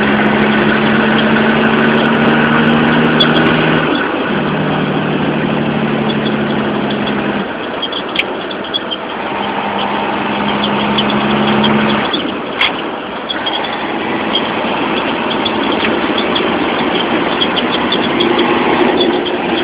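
Caterpillar diesel engine of a 1992 Peterbilt 379 truck running on the road, heard from inside the cab. Its steady drone breaks off and comes back a few times, then drops away about twelve seconds in, leaving the road and cab noise.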